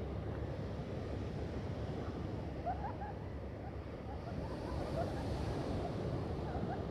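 Steady low outdoor rumble of wind and distant ocean surf, with a few faint short chirp-like sounds in the second half.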